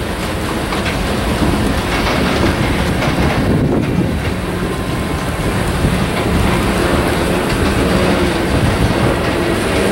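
Freight train of loaded covered hopper cars rolling past at close range, a steady rumble of steel wheels on the rails with clicking as the wheels cross rail joints.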